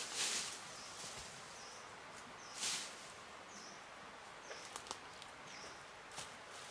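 Two short rustling swishes, as of grass or brush being handled, with a few light clicks in the second half. Under them a faint short chirp repeats about once a second.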